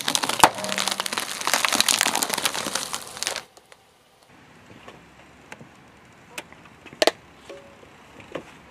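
Car tyre rolling over a sealed plastic snack packet, a loud, dense crinkling and crunching of the wrapper and its contents that stops abruptly after about three and a half seconds. After that it is quieter, with a few scattered sharp cracks, the loudest about seven seconds in.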